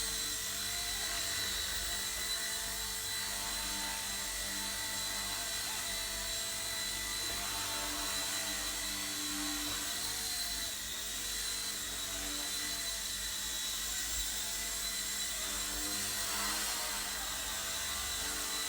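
Eachine E129 micro RC helicopter in flight: a steady high electric motor whine with rotor buzz. The pitch dips briefly about halfway through.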